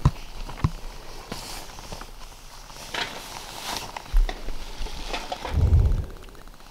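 Footsteps crunching and scuffing on dry dirt and pine needles while walking, with a low rumble on the microphone about two-thirds of the way in. A faint, fast, even ticking starts near the end.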